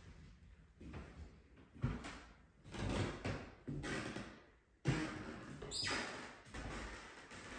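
Footsteps in slide sandals on carpet over a damaged subfloor: about five slow steps, each drawing a noise from the floor, with a brief high squeak a little before the end. The subfloor under the carpet is rotten and due for repair.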